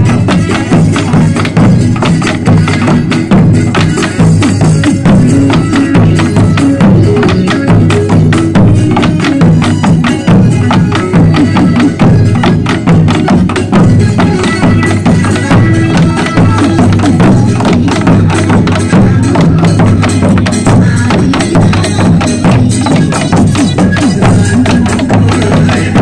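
Many Korean barrel drums (buk) beaten with sticks in a fast, steady rhythm, together with music.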